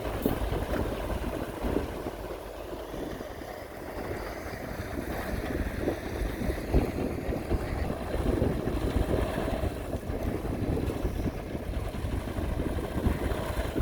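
Heavy construction machinery engines running steadily, with wind rumbling on the microphone.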